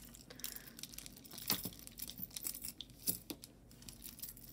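Faint crinkling and rustling with scattered small clicks and taps as pieces of costume jewelry are handled and sorted by hand.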